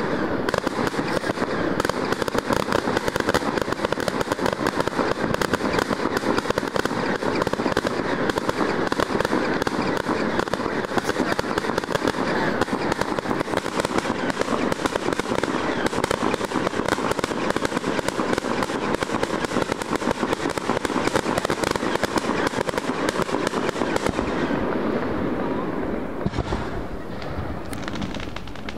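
Fireworks going off in a dense, continuous barrage of rapid crackling and bangs. About 24 seconds in the barrage thins out to a few scattered booms.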